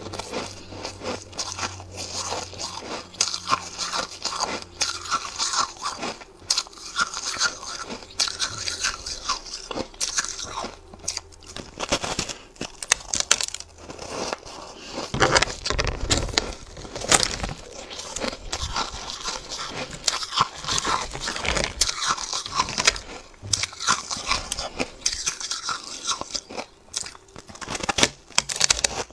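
Bites into a block of soft, snow-like ice dusted with matcha powder: repeated crunching and chewing, with the loudest crunches in the middle.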